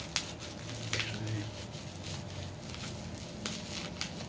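Bubble wrap rustling and crinkling in the hands as a small item is unwrapped, with a few sharp crackles.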